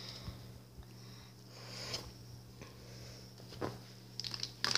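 Quiet room with a steady low hum, and faint rustling of plush toys being handled, with a few soft taps near the end.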